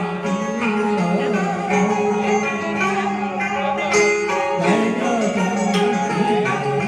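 Instrumental interlude of Vietnamese tân cổ music: plucked strings playing sustained, bending notes.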